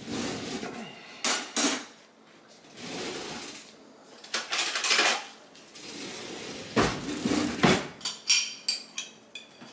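Kitchen utensil scraping and clinking against a jar and a pan as pizza sauce is scooped out and spread, in a string of uneven scrapes and knocks, with a few short ringing clinks near the end.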